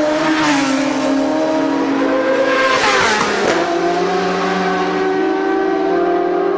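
Racing motorcycle passing at high speed with its engine at high revs. About three seconds in it goes by in a loud rush, its note dropping in pitch, and the engine note then holds steady.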